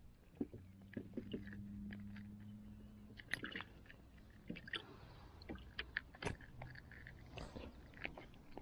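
Faint scattered clicks and rustles of hands handling a freshly caught perch and working a metal jig lure out of its mouth.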